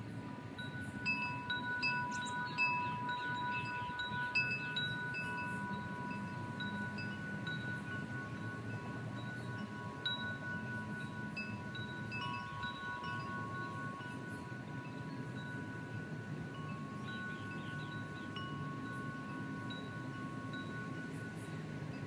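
Wind chimes ringing: a few long, overlapping tones that shift in pitch now and then, with short higher notes in clusters in the first few seconds and again later, over a low steady rumble.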